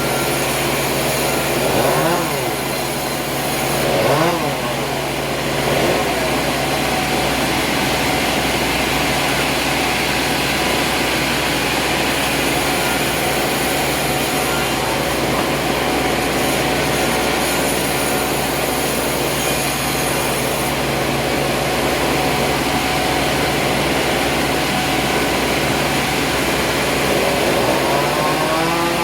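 Sawmill machinery running steadily under load, a constant engine hum with a hiss over it. The pitch briefly rises and falls about two, four and six seconds in and again near the end.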